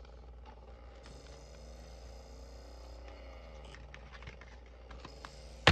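Sylvania portable DVD player's disc drive spinning and reading a disc while it loads: a faint whir that shifts in pitch, with light ticks, ending in a sharp click.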